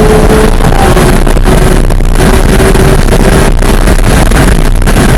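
Porsche 911 GT3 (991.1) naturally aspirated flat-six engine pulling hard at steady high revs in one gear, heard from inside the cabin. Its pitch eases slightly about a second in, over heavy wind and road noise.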